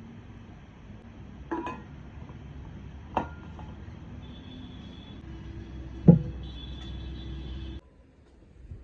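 Three separate sharp clinks, the last one loudest, over a steady low background hum that cuts off abruptly near the end.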